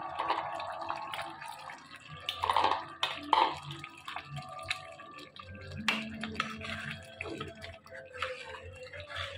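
Thick spinach-and-potato curry simmering in a pot, bubbling with irregular plops and pops, a couple of them louder a few seconds in.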